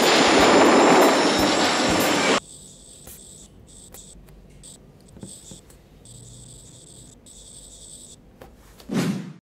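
A loud rush of vehicle noise cuts off about two and a half seconds in. Then an S Pen stylus scratches on a Galaxy Note 9's glass screen in quick, broken strokes. Near the end a short whoosh swells up and stops suddenly.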